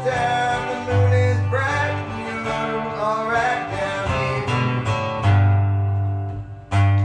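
Background music led by guitar, over a bass line.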